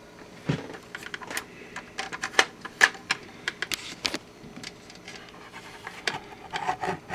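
Stylus of a KLH Model 20 record player tracking a vinyl LP, giving irregular clicks and pops of surface noise through the set's speaker, with a soft thump about half a second in. The crackle is the kind from a dirty record, which the repairer reckons could use a cleaning.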